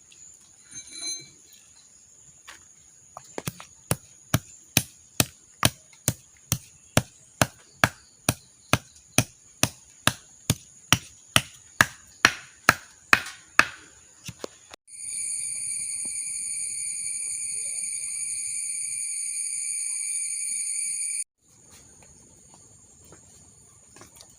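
Black peppercorns, ginger and holy basil leaves pounded to crush them: a run of evenly spaced strikes, about two and a half a second, for some ten seconds. After that comes a loud, steady, high-pitched whine for about six seconds, which cuts off suddenly.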